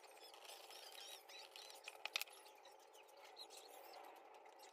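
Near silence: faint room tone with a few faint, high, squeaky chirps and a couple of light clicks about two seconds in.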